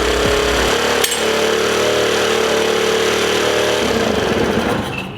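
Grom-clone mini bike's engine running steadily at a high idle, with a sharp click about a second in, then quietening about four seconds in. The idle is racing, which the owner guesses is the carburettor getting too much air.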